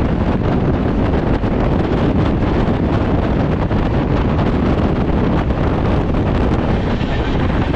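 Strong wind rushing over the microphone held outside a fast-moving passenger train, over the train's steady running noise on the track. The sound stays loud and even throughout.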